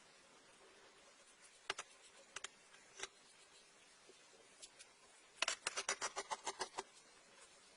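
Sharp clicks from handwork: three single ones, then a quick run of about a dozen a little past halfway.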